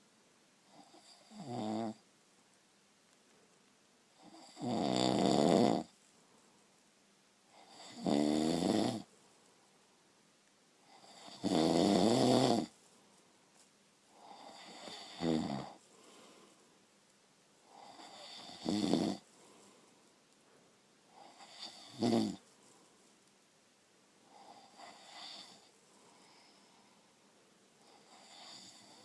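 A sleeping person snoring, about nine snores three to four seconds apart, the middle ones loudest and the later ones fainter. It is heavy snoring that the recordist takes for sleep apnea.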